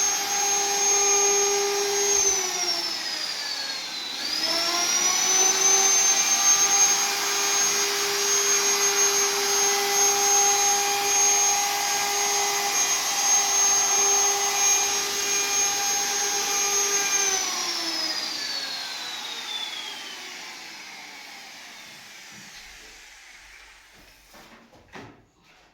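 Electric woodworking machine motor running with a high, steady whine. About two seconds in it slows, then speeds back up to full speed. From about seventeen seconds it is switched off and winds down, the whine falling away and fading out, with a few light knocks near the end.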